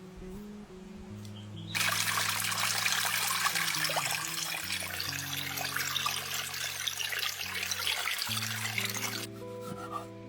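Water running or pouring in a steady stream for about seven seconds, starting and stopping abruptly, over soft background music.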